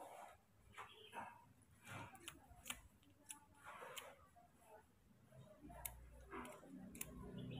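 Baby macaque chewing and sucking on an orange segment: faint, irregular wet smacks and crisp little clicks. A low hum comes in near the end.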